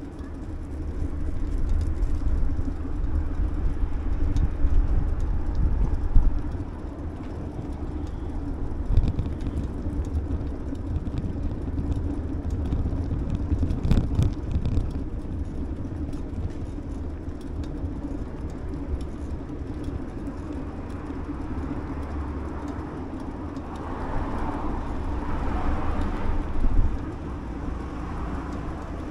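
Steady low rumble of wind and tyres from a bicycle ride along a paved city cycle path, with road traffic behind it and a louder stretch of passing noise near the end.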